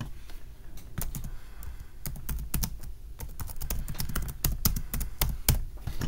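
Typing on a computer keyboard: a quick, irregular run of keystrokes.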